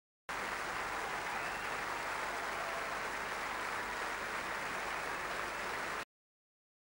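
Steady rushing noise that starts suddenly just after the start and cuts off abruptly about six seconds in.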